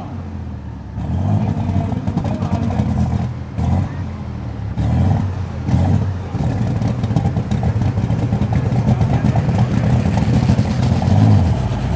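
Turbocharged methanol engine of a Super Stock pulling tractor running hard, surging and dropping back at first, then holding steady and growing louder from about halfway, with a faint rising whine near the end.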